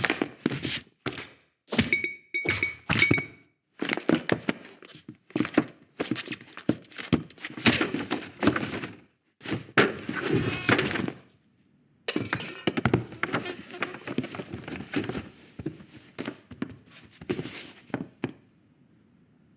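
Animated-film foley with no music: a busy run of thunks, knocks and clattering impacts, with a few short high tones about two to three seconds in and a brief pause near the middle. It stops about eighteen seconds in.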